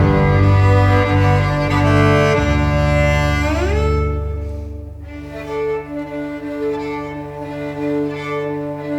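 Instrumental passage on cello, violin and double bass playing held notes. About four seconds in, the strings slide up in pitch into a long held note, and the playing turns quieter.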